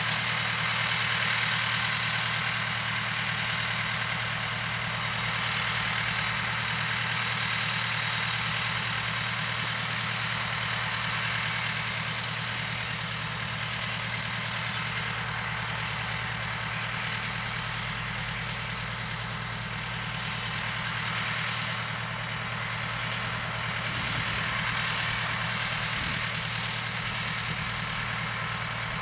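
Case MX 100 tractor's diesel engine idling steadily, with an even hiss over it.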